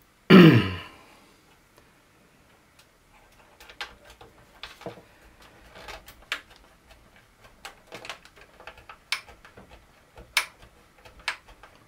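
Light scattered clicks and taps of small plastic parts and screws being handled and fitted inside a plastic model ship hull, several a second at times. Just after the start there is one brief loud sound that falls in pitch.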